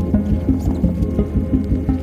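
Background music with a steady, fast beat and a short repeating melody of held low notes.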